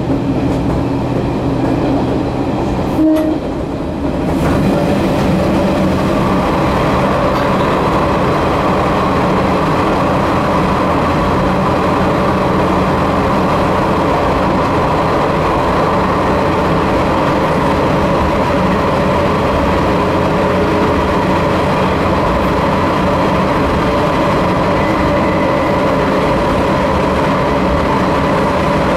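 Diesel railcar (Sanriku Railway 36-100 series) running, heard from inside the cab, with a short horn blast about three seconds in. Just after, the running noise turns fuller and steadier as the railcar enters a tunnel and runs on through it.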